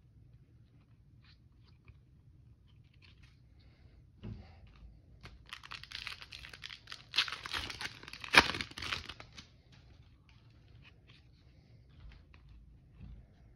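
A foil trading-card pack being torn open and crinkled, loudest in the middle with one sharp rip. Soft clicks of cards being handled before and after.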